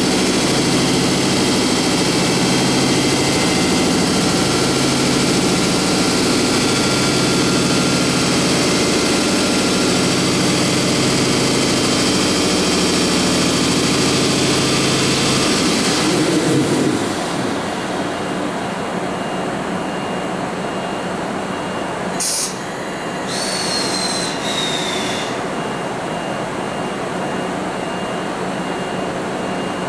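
EF64 1000-series electric locomotive standing with its auxiliary machinery running: a loud steady hum and whine that winds down in pitch a little past halfway, leaving a quieter steady hiss. Near the end come a short sharp clack and a brief high whistle falling in pitch.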